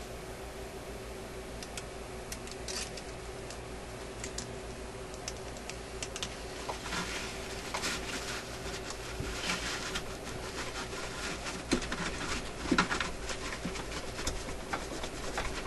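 A cloth rubbing and scrubbing against the metal linkages of an old record-changer mechanism as dried grease is wiped off with alcohol, with small scattered clicks and taps. The rubbing gets busier after about six seconds, over a steady faint hum.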